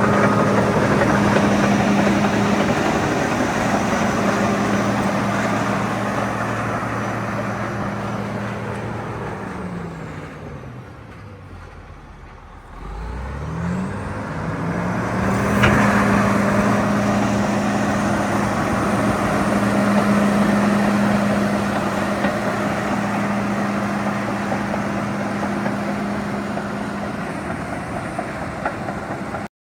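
CAT D8R bulldozer's diesel engine running steadily at high speed, throttled down to a low idle about ten seconds in, then revved back up a few seconds later and held steady. A single sharp knock as it comes back up; the sound cuts off suddenly near the end.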